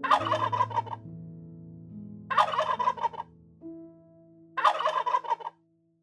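Tom turkey gobbling three times, each a rapid warbling call of about a second, spaced about two seconds apart.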